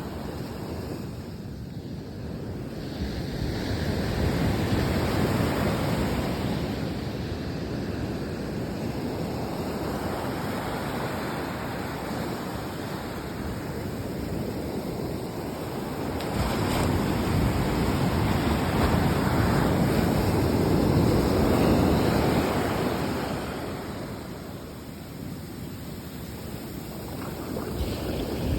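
Sea waves surging and washing in, swelling twice to louder crests and ebbing between, with wind buffeting the microphone.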